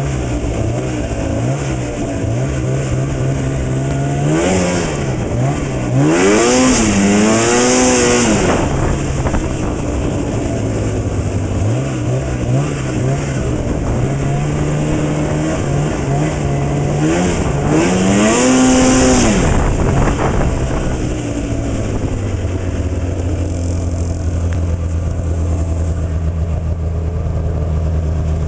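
Arctic Cat Z 570 snowmobile's two-stroke engine running under way, revving up and back down twice, then settling to a steady idle over the last several seconds.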